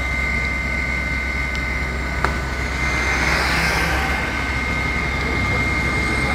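Steady engine drone with a high, even whine above it, and a hiss that swells about three seconds in.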